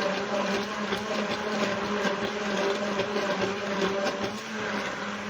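Electric kitchen mixer running steadily, its motor humming as it beats eggs into a cake batter.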